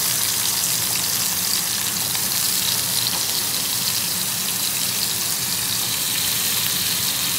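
Potato chunks frying in hot oil in a kadhai, a steady, even sizzling hiss.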